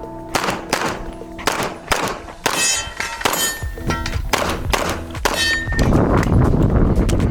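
Pistol shots fired in quick strings through a practical-shooting stage, with a steel target ringing after hits about two and a half seconds in and again about five seconds in. Background music runs underneath, and a rushing low noise comes up in the last second or so.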